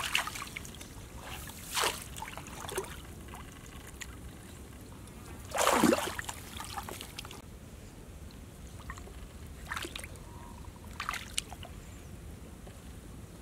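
Hands splashing and groping in shallow muddy water among grass, with short irregular splashes, the biggest about six seconds in.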